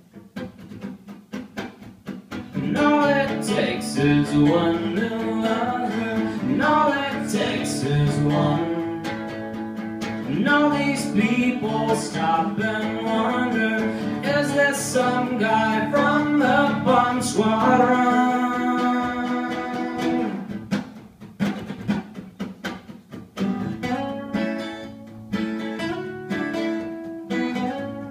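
Two acoustic guitars playing together, strummed chords under a picked melody line. The playing grows fuller about two and a half seconds in and eases back to quieter picking from about twenty seconds on.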